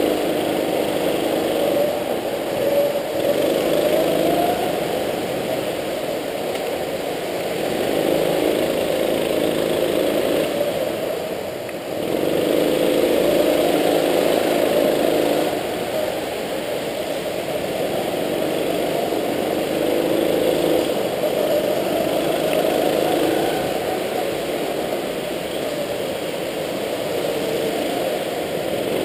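Go-kart engine heard from on board, revving up along the straights and dropping back for the corners, so that it rises and falls in pitch several times.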